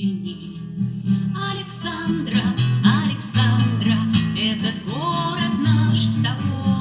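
Acoustic guitar strummed as accompaniment, with a female voice singing a melody that comes in about a second and a half in.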